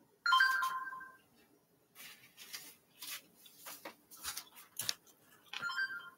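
Two short chime-like tones about five seconds apart, each starting sharply and dying away within a second. Between them are light taps, clicks and handling noise from the recording phone being handled.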